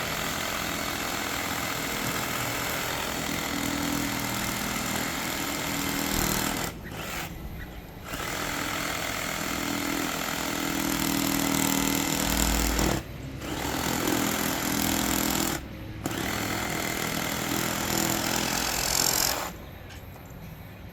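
Reciprocating saw (sawzall) cutting through a cast iron sewer pipe, a loud steady run broken by three short stops and restarts, then stopping for good near the end.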